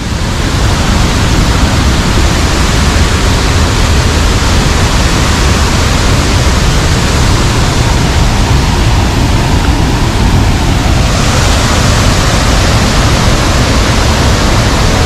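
Steady, loud rush of water from river waterfalls plunging into a rocky gorge, an even roar with no pattern to it. About eleven seconds in it turns brighter and hissier.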